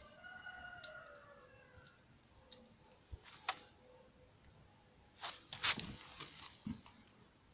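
A faint drawn-out call with a slowly falling pitch near the start, then a cluster of sharp clicks and rustles about five to six seconds in as a hand reaches in toward a sleeping cat.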